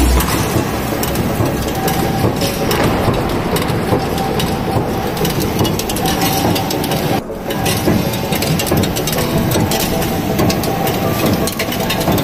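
Five-station high-speed cold nut former running, making hex nuts: a loud, dense run of rapid metal knocks over steady machine noise.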